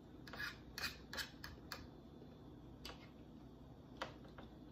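Metal fork scraping and clicking against a plate as food is cut and picked up: a quick run of short scrapes in the first two seconds, then single clicks about three and four seconds in.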